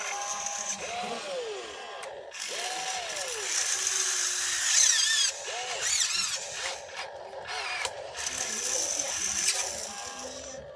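Electric drive motors of a radio-controlled toy excavator whining in short bursts whose pitch rises and falls as the boom and bucket are worked into loose dirt.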